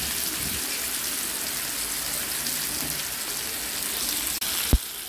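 Chicken breasts sizzling in hot oil in a cast iron skillet, a steady hiss as they sear. A single sharp knock near the end.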